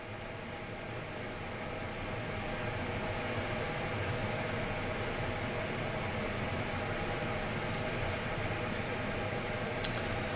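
The motor drive of an EMS 7000smz2 vibrating microtome running steadily as it moves the blade to the alignment position and raises the stage. It makes a whirring noise that builds over the first couple of seconds and then holds even, over a constant high-pitched whine.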